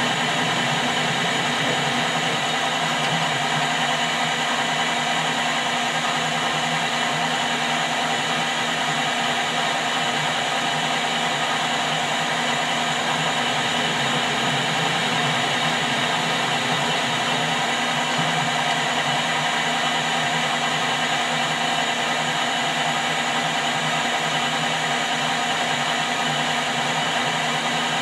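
Metal lathe running steadily while cutting a thread: a continuous machine hum of several steady tones over a hiss, unchanging throughout.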